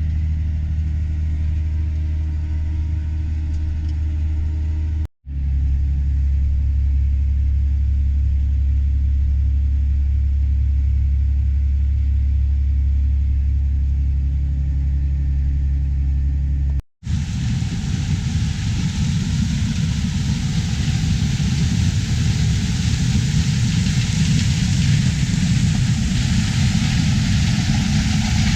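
Diesel engine of harvest farm machinery running steadily with a low drone. It cuts out briefly twice, and after the second break it turns rougher and noisier.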